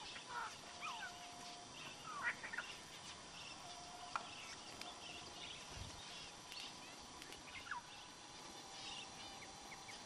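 Small wild birds calling: a scatter of short, high chirps and quick rising or falling whistle notes, with a couple of brief level whistles.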